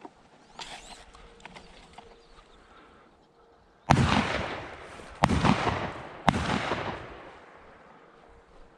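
Three shotgun shots in quick succession about a second apart, starting about four seconds in, each trailing off in a long echo.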